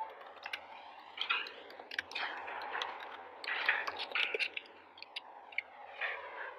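Irregular clicking and tapping of a computer keyboard and mouse, over a steady background hiss.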